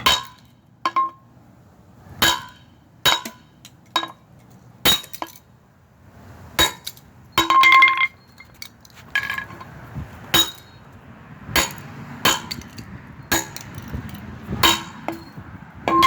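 A toy car being smashed: irregular sharp strikes, roughly one a second, each with a short metallic clinking ring.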